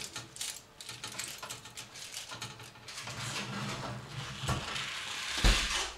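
Aluminium foil crinkling as it is pressed around a roast chicken's wings, then a loud thud near the end as the oven door is shut.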